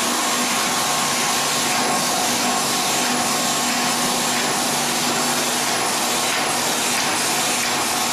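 NJP-400C/800C automatic capsule filling machine running: a steady hum and hiss, with faint regular ticks about twice a second.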